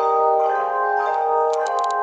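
A handchime ensemble playing a slow tune: chords of sustained, ringing bell-like tones, with new notes struck about every half second. A few short high clicks sound near the end.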